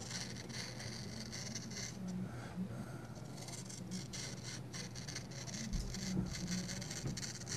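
Knife blade of 20CV steel slicing through a sheet of paper, a soft hissing rustle that comes in stretches with a pause or two. The cut is smooth, with no gritty catching, the sign of a very sharp edge.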